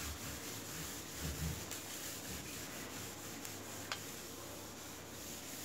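Scouring sponge scrubbing a ribbed stainless steel sink drainboard coated in a cleaning paste, a steady back-and-forth rubbing. A faint click about four seconds in.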